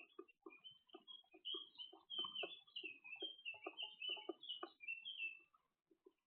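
Tits at a nut feeder: a busy run of high, gliding chirping calls with many short, irregular taps beneath, dying away about a second before the end.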